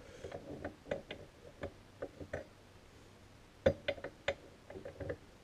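Small metal clicks and taps of a new U-joint cross and its bearing cap being worked by hand into a front axle shaft yoke, with a quick run of sharper clicks about two-thirds of the way through.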